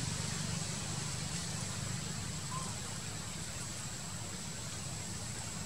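Steady outdoor background noise: a low rumble and hiss with a thin, steady high-pitched whine running through it.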